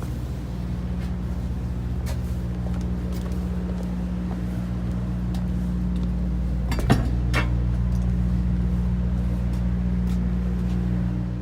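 An engine running steadily with a low, even hum, with scattered light clicks and one sharp knock about seven seconds in.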